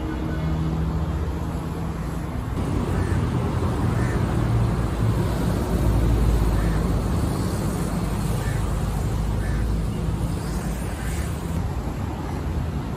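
Road traffic: cars passing on a busy multi-lane road with a steady rumble. The rumble grows louder and deeper about halfway through as a lorry goes by.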